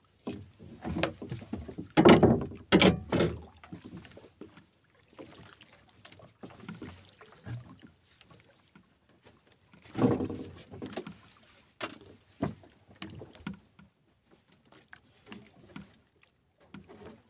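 Irregular knocks and bumps on a small wooden outrigger boat while a fishing handline is hauled in by hand, with the loudest clusters of thuds about two seconds in and again around ten seconds.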